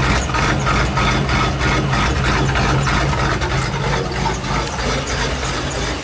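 A 1999 Ford F250's 5.4-litre Triton V8 idling at the tailpipe, the exhaust chugging in an uneven pulse. It is a rough idle, the sign of the engine's misfire.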